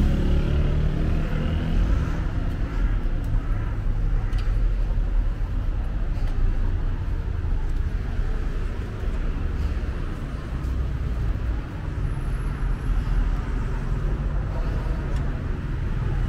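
City street traffic: cars driving past, a steady low rumble of engines and tyres, with one engine note passing close near the start.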